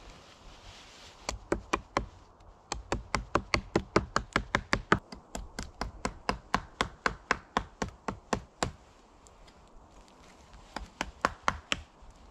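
Sharp wooden knocks from a tool striking wood, about three to four a second: a few strikes, then a long steady run, a pause, and a short cluster near the end.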